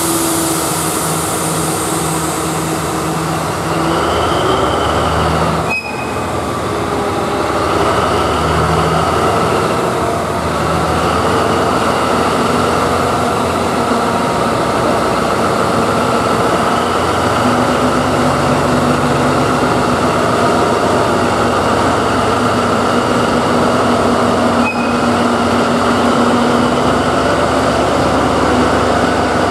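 Class 753 diesel-electric locomotive pulling a freight train away from a standstill: its engine note rises about four seconds in as it takes load. After that the car-carrier wagons roll past with steady wheel noise.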